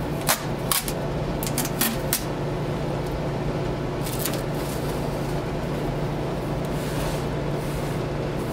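Packing tape and protective plastic being handled and peeled off an inkjet printer: a few sharp crinkles and clicks in the first couple of seconds and again about four seconds in, over a steady low room hum.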